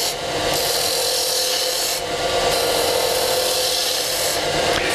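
Wood lathe running with a turning tool cutting into a spinning wooden spindle: a steady scraping hiss from the cut over a faint, even hum.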